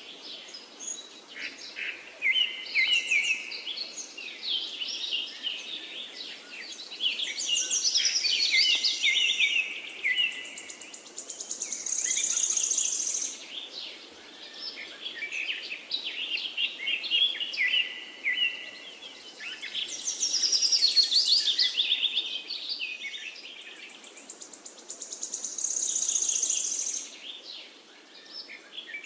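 Many birds chirping and trilling together in a dense chorus of quick high calls. The chorus swells and fades every few seconds, over a faint steady hiss.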